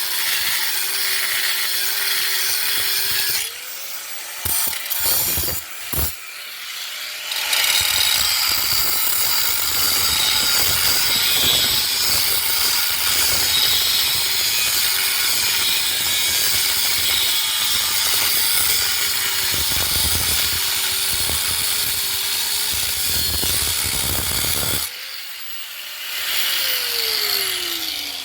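Handheld power tool running under load as it cuts, with a steady motor tone over harsh cutting noise. A few seconds in it stops briefly with a couple of knocks, then runs again, and near the end it is switched off and winds down in a falling whine.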